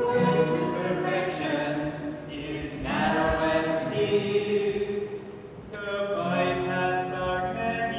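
A small group of voices, men and women, singing a song together in long held phrases, with two short breaks. An acoustic guitar accompanies them.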